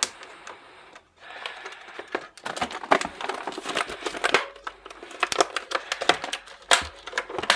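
Plastic top cover of a mechanical keyboard being pressed and clipped onto its base: a run of irregular clicks and snaps, a few louder than the rest.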